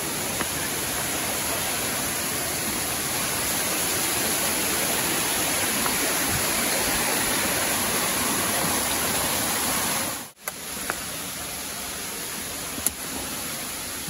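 Waterfall water rushing in a steady roar. It cuts out abruptly a little over ten seconds in and comes back quieter.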